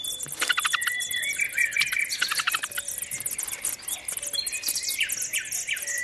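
European robin nestlings begging for food, clamouring loudly: a dense, rapid run of very high chirps, with a few longer whistled notes mixed in.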